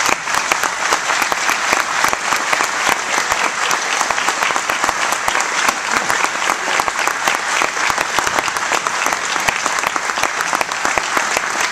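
Audience applauding, a dense, continuous clapping that holds steady throughout.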